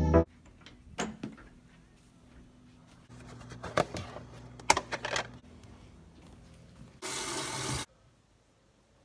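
Intro music cuts off at the start. Then come the clicks and knocks of a drip coffee maker's lid and filter basket being handled, with a low hum in the middle. About seven seconds in, a tap runs briefly for under a second.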